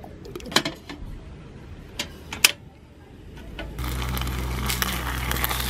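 A hand-held can opener cutting around a tin lid, with a few sharp metallic clicks. From about four seconds in, a louder, steady hiss from a saucepan heating on a camping gas stove takes over.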